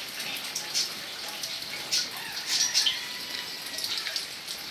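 Light rain falling, with steady hiss and scattered drops pattering and dripping.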